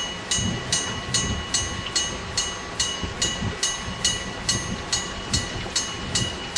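Electric bell (denrei) of a Japanese railroad crossing signal striking rapidly and evenly, about five strikes every two seconds, each strike ringing on at a bright metallic pitch. Underneath it a train rumbles past over the crossing.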